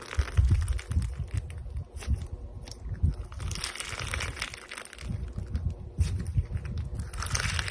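Slime being squeezed and pressed by hand: an irregular run of crackling, crunching pops and soft squelches.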